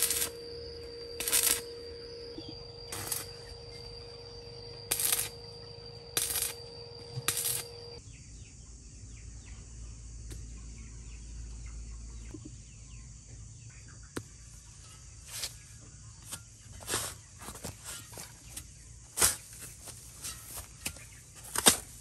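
Arc welding on a steel roof frame: a steady electrical whine with a sharp metallic click every second or so. About eight seconds in this gives way to a long-handled steel spade cutting into grassy soil, with scattered crunches and scrapes growing more frequent toward the end.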